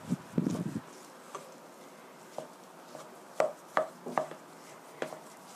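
Stiff mashed-potato dough being mixed with a spatula in a stainless steel bowl: a few soft squishy thumps at the start, then the spatula knocking against the bowl about six times, the loudest pair a little past the middle.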